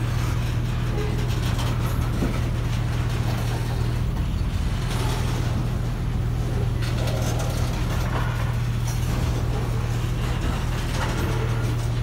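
Covered hopper cars of a freight train rolling past at a steady speed: a constant low rumble of steel wheels on rail with scattered clicks and clanks.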